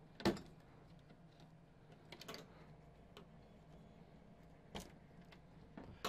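Plastic wire-harness connectors being pulled off a TV main board: a sharp click just after the start, a small cluster of clicks a little after two seconds, and single clicks near three and five seconds.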